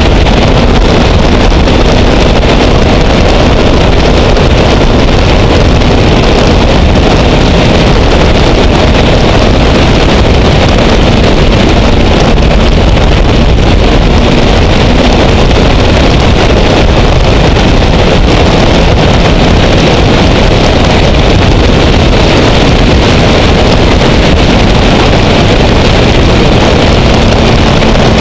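Gas turbine engine of a Sanger catamaran race boat running under way: a loud, steady rush with a thin, high, steady whine over it, mixed with wind on the microphone.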